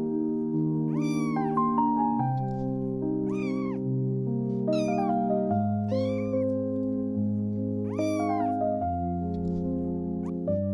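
A newborn kitten mewing: about six short, high-pitched cries, each rising and falling in pitch, while it is handled and its maggot-infested skin is picked at with tweezers. Slow background music with long held chords plays underneath.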